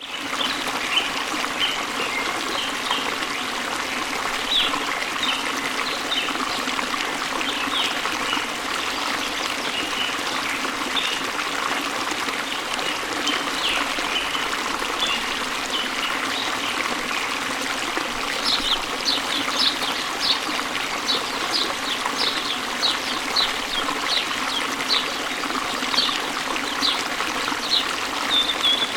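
Running water trickling and splashing steadily, with small birds chirping and singing over it. About two-thirds of the way through, the bird notes turn into a faster run of short, high chirps.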